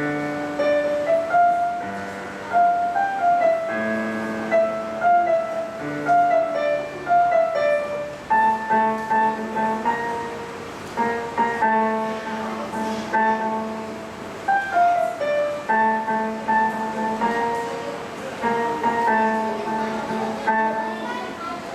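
Solo piano playing a slow melody over held chords in the bass, each note struck and left to ring.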